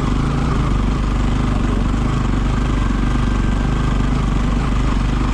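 Motorcycle engine running at a steady speed, with an even rush of noise over it.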